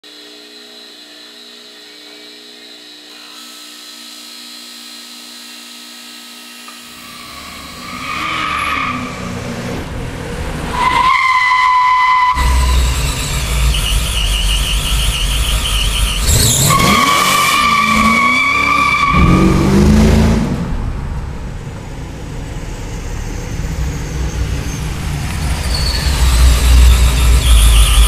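A bench buffer runs with a steady hum. About a quarter of the way in it gives way to car sounds: several long tyre squeals, a V8 engine revving up, and a heavy low engine rumble that grows louder toward the end.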